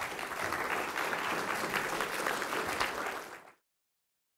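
Audience applauding, a dense patter of many hands clapping that cuts off suddenly about three and a half seconds in.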